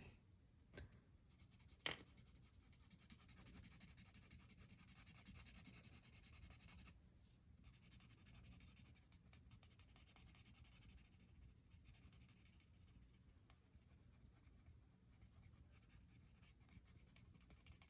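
Faint scratching of a pink marker being stroked back and forth on paper while colouring in, a little louder in the first third, with one click about two seconds in.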